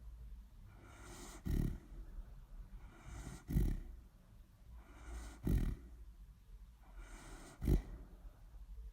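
Sleeping dog snoring in a steady rhythm: a soft drawn breath followed by a short, louder snore about every two seconds, four snores in all.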